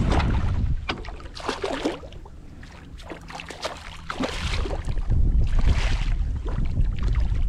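A hooked redfish thrashing and splashing at the surface beside a kayak, in several splashy bursts. Wind buffets the microphone with a low rumble at the start and again near the end.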